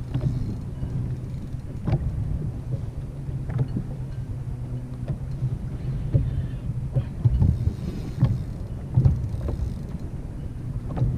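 Wind buffeting the microphone and small waves slapping against a plastic kayak hull, with irregular hollow knocks.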